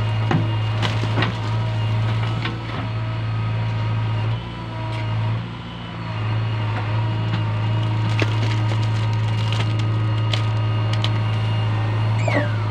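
JCB backhoe loader's diesel engine running steadily under load while the backhoe digs wet clay and swings up to dump it into a trailer, with scattered knocks and clanks from the bucket and arm. The engine level dips briefly around the middle, and there is a short falling squeal near the end.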